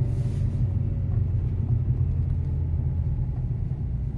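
Renault Mégane II driving, a steady low rumble of road and engine heard from inside the car. The suspension knock that comes on small bumps is not sounding.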